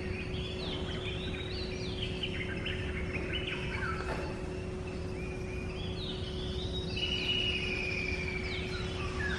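Several wild birds calling at once, with short chirps and quick rising and falling notes and one longer held whistle about seven seconds in. Beneath them run a steady low rumble and a faint constant hum.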